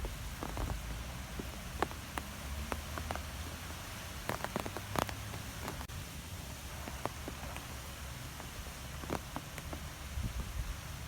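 Wind blowing through trees: a steady rushing hiss over a low rumble, with scattered sharp ticks and taps, a small cluster of them about four to five seconds in.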